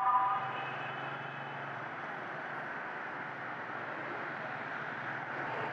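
Steady road noise of a motorcycle riding in city traffic. A vehicle horn is sounding at the start and cuts off within the first half second.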